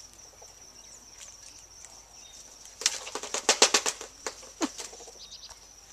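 Von der Decken's hornbills flapping and scrabbling in a ceramic wash basin: a quick run of sharp clatters about three seconds in, then two more shortly after.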